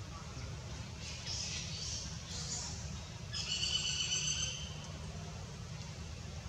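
A short, high-pitched animal call lasting about a second, a little over three seconds in, just after a brief raspy hiss, over a steady low rumble.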